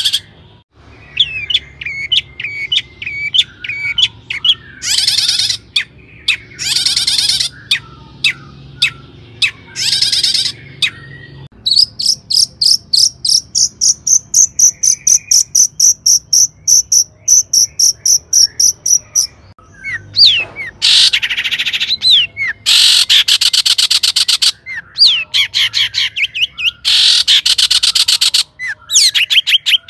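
Long-tailed shrike (cendet) singing loudly: a busy mix of quick high chirps and harsh, scratchy chatter, with a long run of rapidly repeated high notes in the middle.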